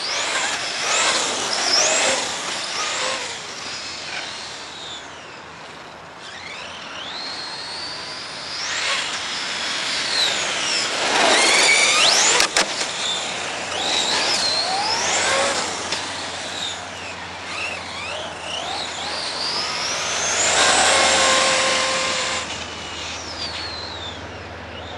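Brushless-converted Robitronic Mantis RC truggy, its Neu 1515 electric motor and drivetrain whining, the pitch sweeping up and down as it accelerates and slows on tarmac, with tyre noise. It is loudest as it passes close about halfway through, with a sharp click just after.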